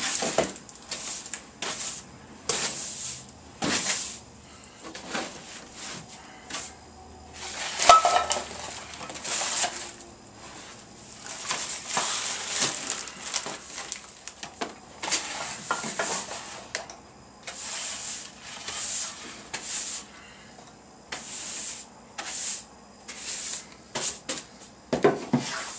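Hand brush sweeping spilled garbage across a hard floor into a dustpan in short, irregular strokes, with empty tin cans knocking and clattering as they are picked up; the loudest is a sharp clatter about eight seconds in.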